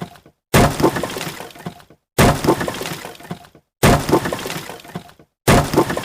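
Wood smashing and splintering: a sharp crash with a clattering tail that dies away. The same break is repeated four times, about every second and a half, with a moment of silence between.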